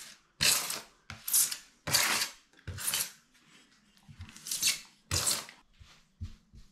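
A tool scraping in about seven short strokes of half a second each, with a pause of about a second midway and a couple of faint knocks near the end.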